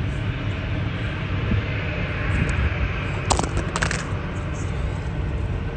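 Steady outdoor rumble and hiss of airport background, with a short cluster of sharp clicks about three and a half seconds in.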